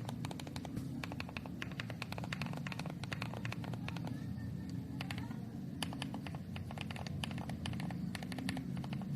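Continuous fast typing on the letter keys of a mechanical keyboard fitted with Jerrzi Seashells linear switches: a dense, even stream of key clacks.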